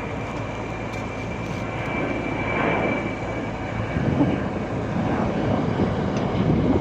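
Komatsu hydraulic excavator running: a steady diesel engine drone with a thin high whine that fades out about halfway through.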